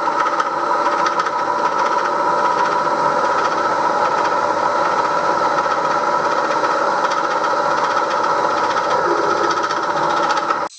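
Milling machine spindle running steadily with a gear whine of several held tones, while the drill cuts into a cast iron cylinder cover. The sound cuts off suddenly near the end.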